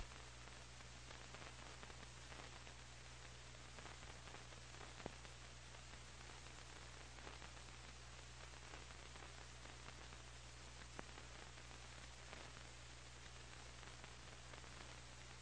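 Near silence: the steady hiss and low hum of an old recording's noise floor, with a faint click about five seconds in and another near eleven seconds.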